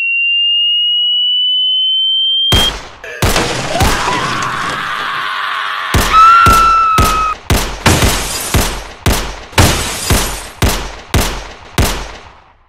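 Film sound design: a pure electronic tone gliding slowly upward, cut off by a heavy hit. A dense ringing noise with a whistling tone follows, then a run of hard hits about two a second that fade away.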